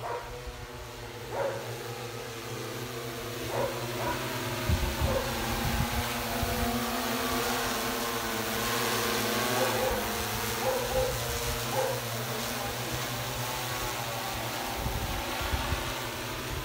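Agricultural crop-spraying drone's rotors humming as it flies overhead: several steady tones over a rushing noise. It grows louder over the first several seconds as it comes closer, then holds steady.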